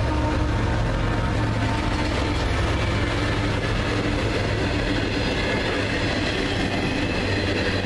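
Diesel locomotives of a freight train passing close by with a steady engine drone, then loaded freight cars rolling past on the rails near the end.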